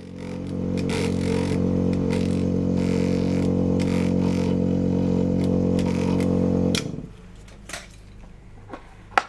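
Vortex-Genie vortex mixer running with a steady hum while a small tube of diluted soil sample is held in its rubber cup to mix, the sound swelling about half a second in and stopping abruptly near seven seconds. A sharp click near the end.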